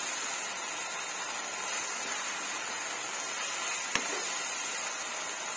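Shrimp paste sizzling in a wok as it is stirred with a wooden spatula, a steady hiss. One sharp knock about four seconds in, the spatula striking the pan.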